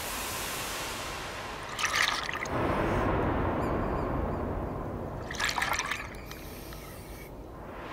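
Scuba diver breathing through a regulator underwater: a steady inhalation hiss, then from about two seconds in a burst of exhaled bubbles rumbling and crackling for about three and a half seconds.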